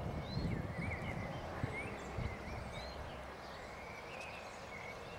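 Birds chirping in the background: scattered short, quick chirps, over a low outdoor rumble that eases after the first second or two.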